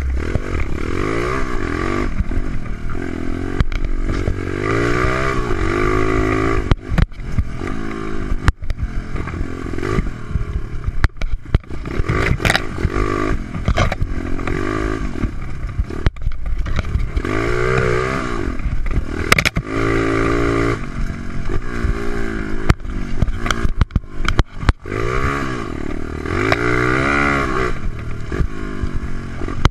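125cc Stomp pit bike's single-cylinder four-stroke engine, breathing through a big Keihin race carb and big-bore exhaust, revving up and dropping back over and over as the bike is ridden hard. Sharp knocks and clatter come from the bike jolting over the track.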